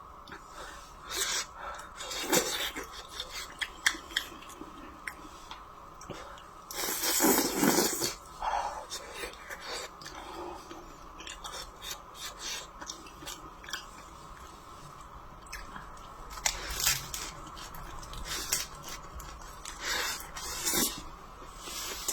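A person chewing and eating food close to the microphone: irregular wet mouth clicks, smacks and crunches, with a louder, longer burst of noise about seven seconds in.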